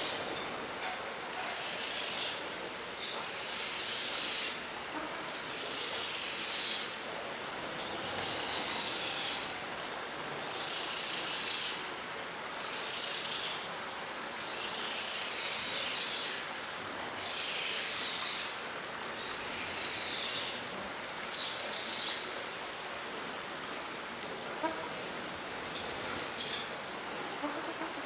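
Scarlet ibis chicks begging at the nest: a high-pitched call repeated about every two seconds, each lasting about a second.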